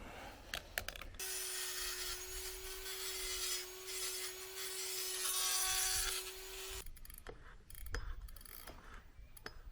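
Dremel rotary tool with a tungsten carbide bit grinding out a raised ring of metal inside a bicycle's bottom bracket shell: a steady high whine with a rasping grind. It runs for about five and a half seconds from about a second in, then stops, followed by a few light clicks and knocks of handling.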